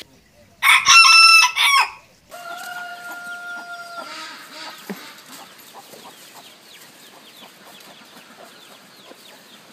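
A rooster crowing: a loud, rough opening about half a second in, then a long, steady held note that ends about four seconds in. After that only a faint outdoor background with small high chirps.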